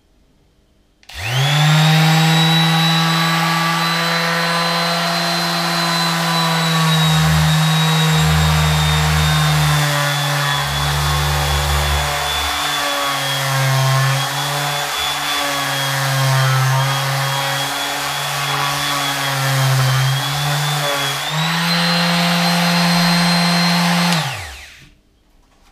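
Mac Allister MSDLS160 160 W electric detail sander switched on with a quick rising spin-up, then running with a steady whine while sanding rough plaster. Its pitch drops and wavers while it is pressed to the wall, picks up again near the end, and it is switched off and winds down.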